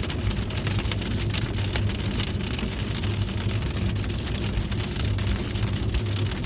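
Rain striking the outside of a car, heard from inside the cabin as many separate drop ticks, over the low steady hum of the car's idling engine.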